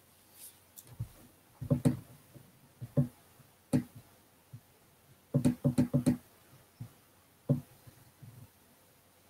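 Quiet room broken by scattered short, dull knocks or taps, with a quick run of four about five and a half seconds in.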